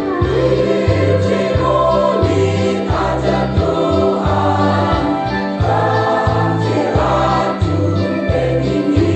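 Mixed choir of women and men singing into stand microphones, over a steady low bass beat of about two notes a second.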